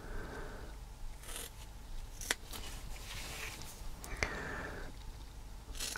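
Small scissors cutting through a strip of foam sponge tape: quiet snips and soft scraping, with two sharper clicks a little past two seconds and about four seconds in.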